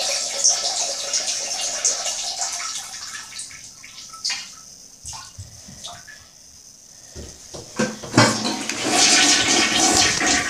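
Toilet flushing: a sudden rush of water that fades over about six seconds, followed by a few light knocks, then water rushing loudly again about eight seconds in.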